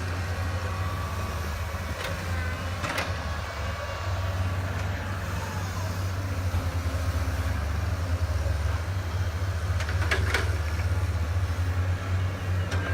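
A truck engine running with a steady low drone. A few short knocks come through about three seconds and ten seconds in.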